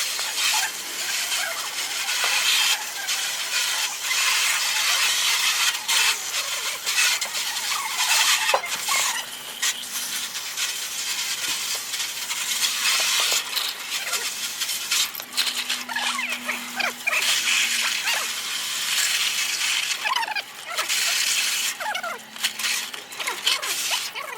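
Scrubbing and scraping on the metal parts of a car starter motor, a continuous rasping of a brush with many short scratches, to clean off dirt the cleaning liquid won't wash away.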